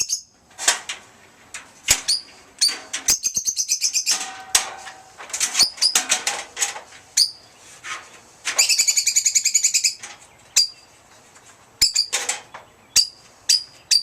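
Caged pet birds chirping: many short, sharp chirps and a couple of rapid trills lasting about a second each, one a little after the start and a louder one past the middle.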